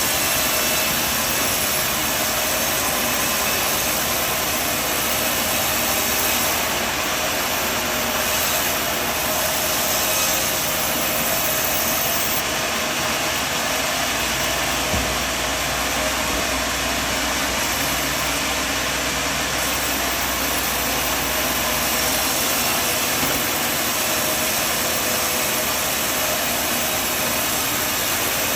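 Sawmill running steadily with a constant, even mechanical noise and no breaks.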